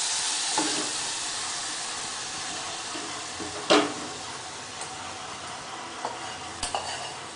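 Sweet corn kernels sizzling in butter in a steel pan, the hiss slowly dying away. A single loud metal clank about halfway through, and a few light clicks near the end.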